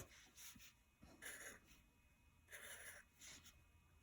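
Faint strokes of a permanent marker drawing on paper: a few short scratchy strokes with pauses between them.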